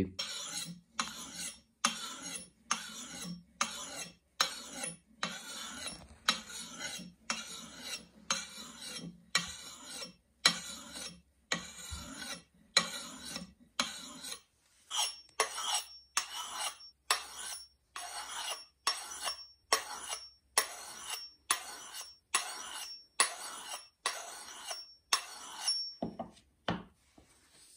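A hand-held sharpening stone rasping along the steel edge of a Stihl forestry hatchet in regular strokes, about two a second, putting an edge on a blade that is not yet sharp. The strokes stop near the end, followed by a couple of light knocks.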